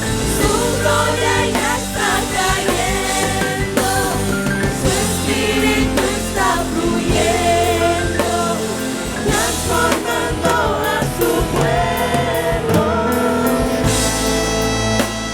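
Christian worship music with a band and voices singing together, a steady bass and drums underneath.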